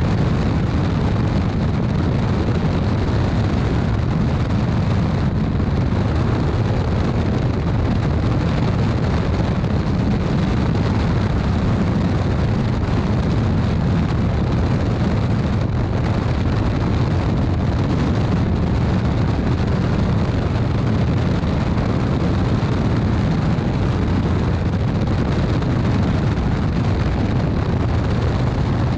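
Evektor SportStar RTC light aircraft in flight, heard from a camera on its underside: the Rotax 912 ULS flat-four engine and propeller drone steadily, mixed with a loud rush of airflow over the microphone.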